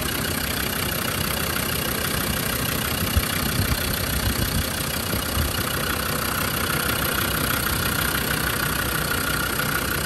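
Land Rover Defender 90's Td5 2.5-litre five-cylinder turbodiesel idling steadily, heard from over the open engine bay; a healthy idle, running as it should.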